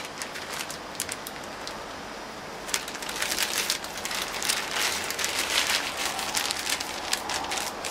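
A steady hiss from a pot of hot wort on a gas burner; from about three seconds in, dense irregular crackling and rustling as a muslin bag of licorice root is unfolded and lowered into the wort.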